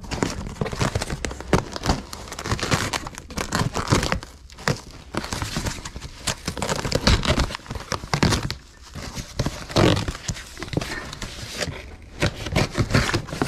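Cardboard box wrapped in plastic packing tape being cut and torn open with a pocketknife: tape ripping away and cardboard flaps tearing and crinkling in quick, irregular rips.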